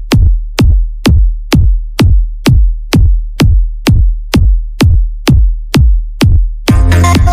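Electronic dance music: a lone, bass-heavy kick drum beats about twice a second, and the full track with bass and synths comes in near the end.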